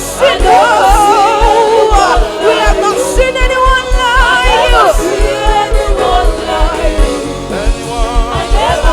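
Gospel worship music: sung voices holding long, wavering notes with vibrato over a steady low drum beat.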